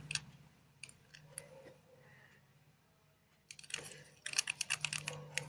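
Light, quick clicks and taps of a stirring utensil and a plastic container being handled while mixing slime. There are a few ticks at first, then after a pause a fast run of clicks near the end.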